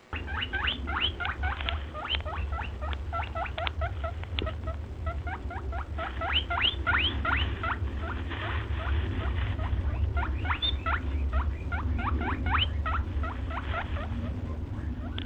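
Small animals squeaking: many short, sharply rising squeaks in quick runs, several a second, over a steady low hum.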